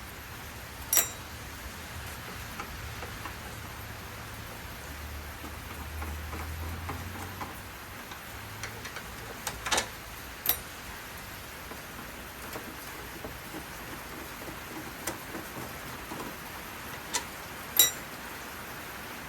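Scattered sharp clicks and taps of small metal screws and parts being handled while a smoker's fan is unscrewed. About half a dozen of them sound over a steady hiss.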